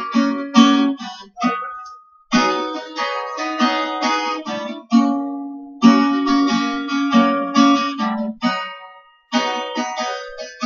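Acoustic guitar strummed in a slow rhythm, chords ringing between strokes, with short pauses about two seconds in and near the end.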